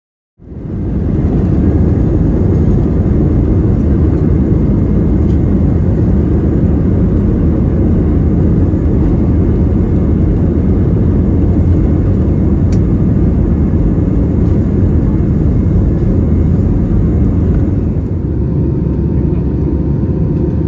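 Airbus A320-family airliner's jet engines heard from inside the cabin during takeoff: a loud, steady rumbling roar that cuts in about half a second in and drops slightly in level near the end as the plane climbs.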